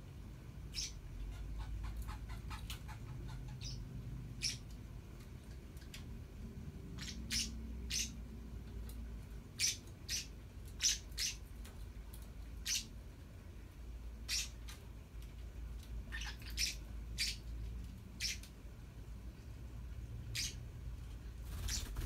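Young green parakeets giving short, sharp, high chirps and squeaks, about two dozen scattered irregularly and thickest in the middle, over a steady low hum.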